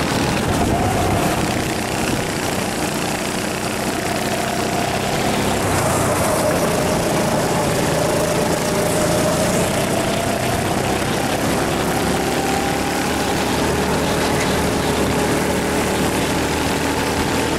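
Rental go-kart's small engine running hard on a racing lap, heard from the driver's seat, its pitch dipping a few times and climbing again as the kart goes through bends and onto the straight, over a steady rush of noise.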